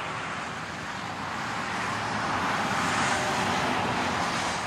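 Road noise from a car driving on a highway: a steady rush of tyres and wind that swells gently toward the middle and eases off near the end.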